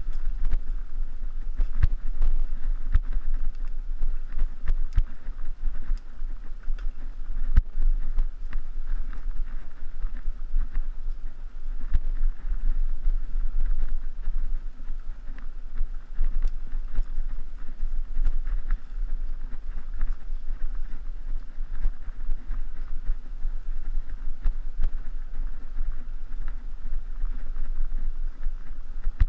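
Mountain bike ridden over a grassy dirt singletrack: a steady low wind rumble on the microphone, with many scattered clicks and rattles from the bike over bumps in the trail.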